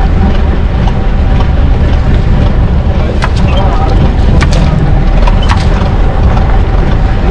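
A fishing boat's engine running steadily with a heavy low rumble, with a few sharp clicks or knocks over it.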